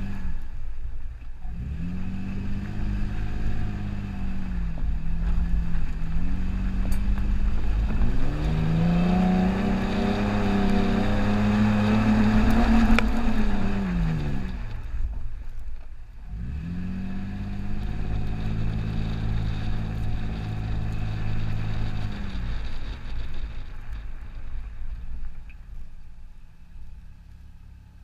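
Toyota FJ Cruiser's 4.0-litre V6 engine driving over soft sand dunes. The revs climb and hold, drop away about halfway through, pull up again, then ease off and fade near the end.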